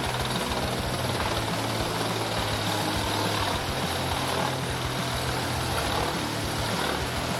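Wood chipper's engine running steadily: a constant low drone with a noisy mechanical hiss and no pauses.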